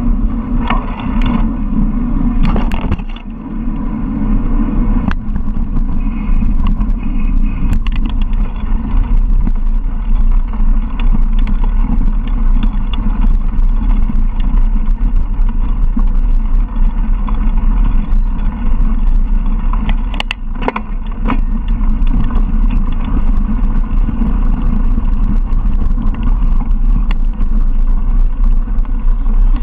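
Wind rumbling over the camera's microphone as a mountain bike rolls along a gravel track, with tyre noise and scattered sharp clicks and rattles from the bike.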